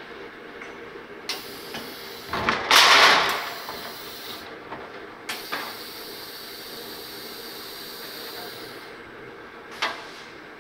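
Paper core cutting machine running with a steady hum, its pneumatics letting out a loud hiss of compressed air about three seconds in and a longer, fainter hiss from about five to nine seconds, with a sharp click near the end.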